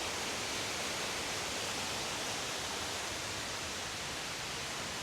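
Large waterfall rushing steadily: an even hiss of falling water.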